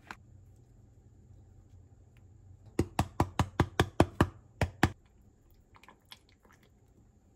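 Knife chopping quickly on a cutting board: about ten fast chops in two seconds, then a few lighter taps.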